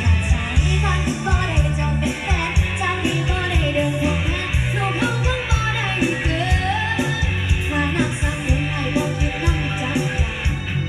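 A song with a lead singer, a steady drum beat and heavy bass, played loudly through a homemade outdoor loudspeaker under test.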